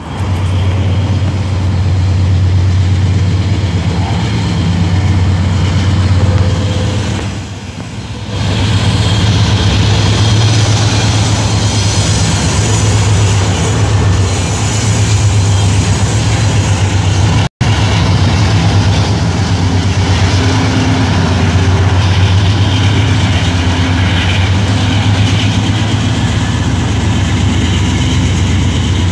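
Diesel locomotive engines running with a steady, loud low drone, mixed with passing road traffic. The drone dips briefly about eight seconds in.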